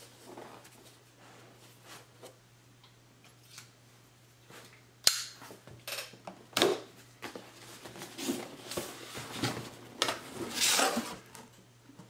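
Cardboard product box being handled and its seal cut with a folding pocketknife, then opened: quiet at first, a sharp click about five seconds in, then irregular scraping and rustling of cardboard.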